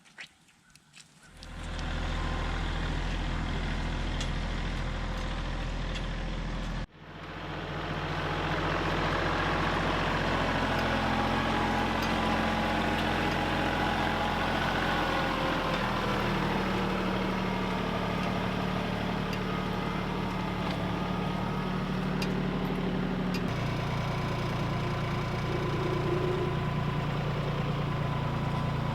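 A heavy engine running steadily, starting about a second in. It breaks off sharply for an instant near 7 s, then runs on, its pitch shifting twice in the second half.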